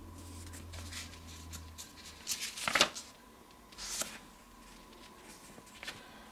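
Paper booklet pages rustling as they are turned by hand, in a few short bursts, loudest about halfway through.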